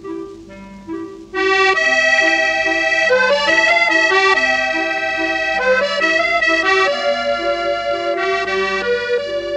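Instrumental passage of a French chanson, with no singing. A soft accompaniment opens it, and a full melody comes in just over a second in.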